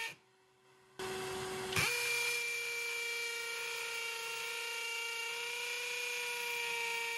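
Flex FX1271T 24V brushless hammer drill running at its second speed without turbo, boring a masonry bit into concrete. It starts about a second in with a lighter whine and becomes louder and steadier nearly two seconds in as the bit bites. It then runs at a constant pitch.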